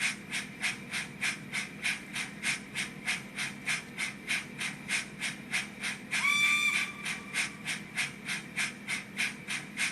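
DCC sound decoder in a Rapido model of the steam locomotive Lion playing steady steam exhaust chuffs, about three and a half a second, as the model runs in. A short whistle blast sounds about six seconds in.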